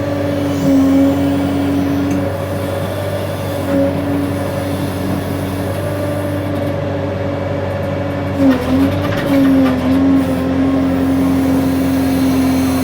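Case 580N backhoe loader's diesel engine running steadily at working revs. Its pitch dips briefly a few times, with a few knocks about two-thirds of the way through, as the digging hydraulics take load.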